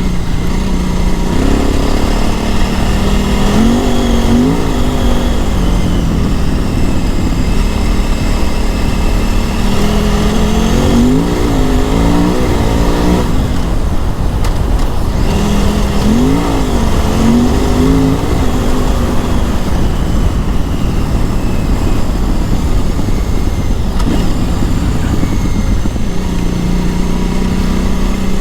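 KTM 950 Adventure S's LC8 V-twin engine running at low revs, its pitch rising and falling repeatedly as the throttle is worked while riding slowly off-road.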